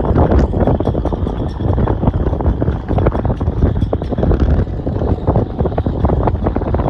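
Strong gusting wind buffeting the microphone, a dense low rumble with constant crackling fluctuation.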